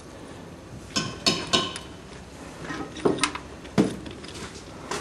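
Metal clinks and light taps as a short bent steel injector pipe and its union nut are handled and fitted onto the fuel pump's delivery valve holder, a few sharp ringing clicks in two small clusters.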